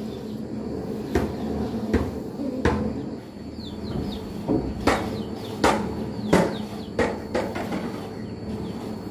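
Grass broom sweeping a glazed tile floor, with about eight sharp knocks at irregular intervals, the loudest between five and seven seconds in.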